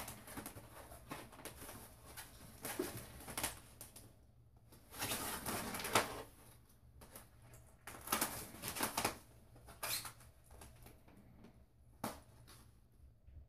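Small kittens' claws scrabbling and scratching on fabric as they climb and play, in uneven rustling bursts with small clicks, loudest around the middle.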